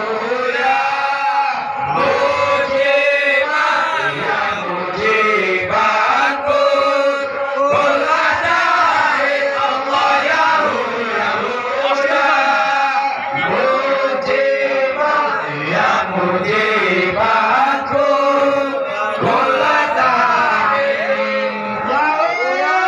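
A group of voices chanting an Islamic devotional song (sholawat) in long, melodic phrases.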